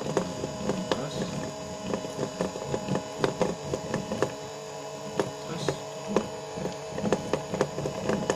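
Steady machine hum with several steady tones, under irregular clicks and knocks a few times a second, from the turning parts whose speed the Hall-effect sensors are reading.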